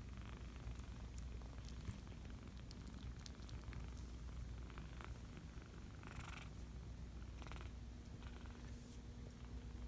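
Five-week-old kitten purring, with a couple of brief rustles of blanket fabric a little past the middle as the kittens wrestle.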